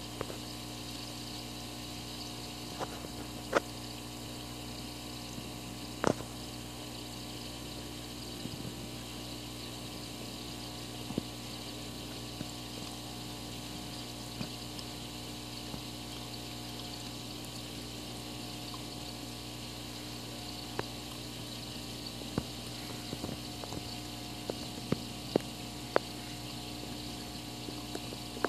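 Aquarium pump humming steadily, with water bubbling and scattered sharp clicks, a few of them louder and more of them in the last few seconds.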